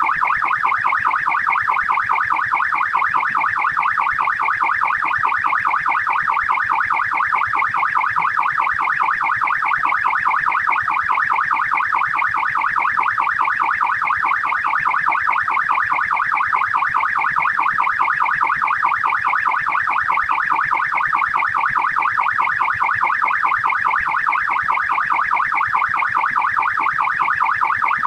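Australian police siren in fast yelp mode: a rapid, even rising-and-falling electronic wail, several cycles a second, held steady throughout.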